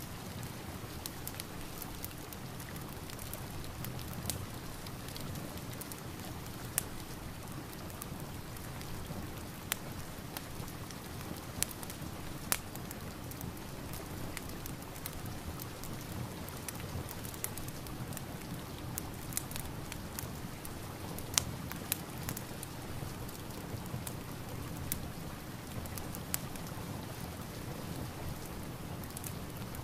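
Steady rain with irregular sharp crackles and pops from a wood fire.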